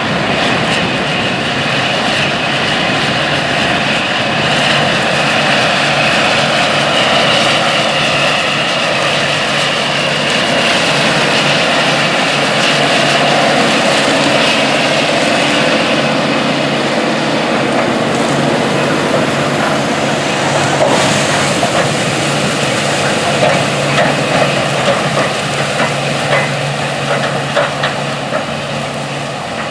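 A large farm tractor's diesel engine running steadily under load while pulling a wide disc harrow, with the disc gang's noise over the engine drone. A few sharper knocks and rattles come near the end.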